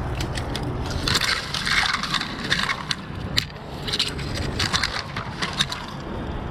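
Irregular crunching and sharp snapping of dry brush, leaves and twigs under someone moving through it, in two busier stretches.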